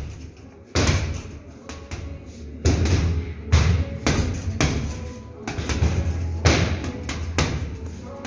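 Boxing gloves punching teardrop heavy bags in quick combinations: a string of deep thuds, several in a row, then a brief pause before the next flurry.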